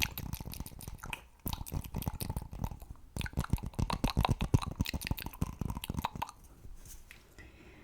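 Close-miked ASMR mouth sounds: rapid clicks and smacks, many a second, thinning out to quiet about six seconds in.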